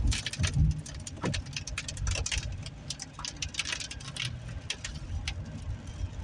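Raindrops pattering irregularly on a car's windshield and roof, heard from inside the cabin, over a steady low rumble of the car driving on a wet road. A couple of heavier low thumps come in the first second.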